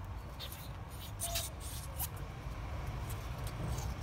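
Short scrapes, rubs and small clicks of hands working on a metal clutch master cylinder body being cleaned, over a steady low background rumble.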